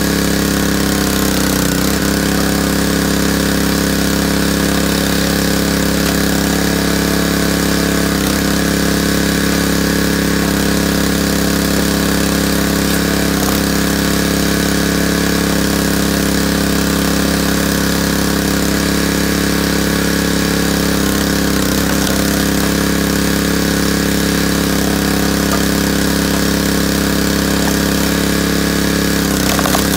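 Small gasoline engine of a hydraulic log splitter running steadily, its note dipping briefly a few times.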